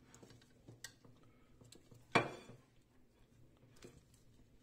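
Metal rotisserie spit and its meat fork being handled over a ceramic plate: a few light clicks and one sharp metallic clink about two seconds in.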